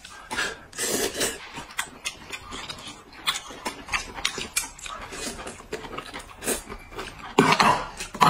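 Two people eating noodles, with repeated slurps and chewing mouth noises at irregular intervals.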